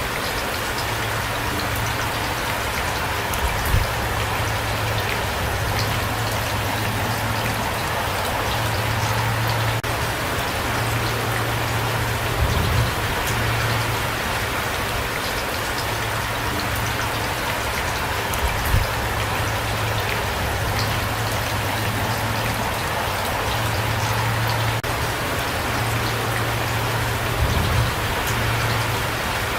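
Steady rain falling, with a dense patter of drops and a low hum beneath that drops out now and then. A few louder low knocks stand out, about four in all, spread through the rain.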